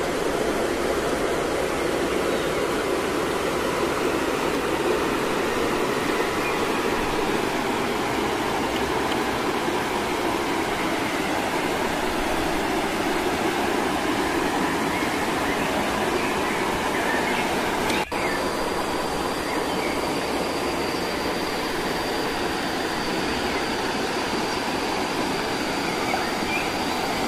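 Steady rush of a small waterfall and stream. About eighteen seconds in there is a brief drop, after which a faint, high, steady tone runs under the water.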